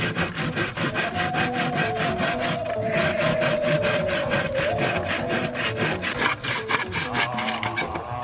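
Hand saw cutting an old weathered wooden board in quick, regular back-and-forth strokes, stopping near the end as the cut is finished.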